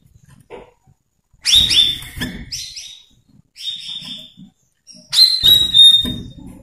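Cucak rawis (leafbird) singing in three loud bursts of high, clear whistled notes that drop onto a ringing tone, mixed with harsher chattering.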